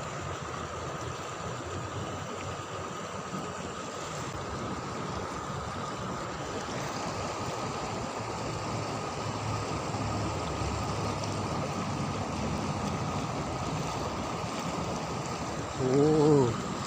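River water flowing steadily, an even rushing noise. A brief voice cuts in near the end.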